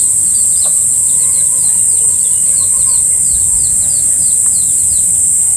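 Steady, high-pitched insect drone, the loudest thing throughout, with a bird's short falling chirps repeating three or four times a second and faint, lower wavering calls beneath.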